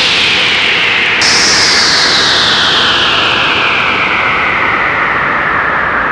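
Roland AIRA Compact S-1 synthesizer playing a filtered noise patch: a hiss with a resonant band that sweeps slowly downward in pitch. About a second in, the note is retriggered and the sweep starts high again, falling over the next several seconds.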